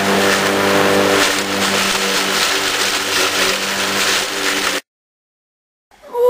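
An engine running steadily, cutting off abruptly about three-quarters of the way in; a short wavering, gliding wail starts just before the end.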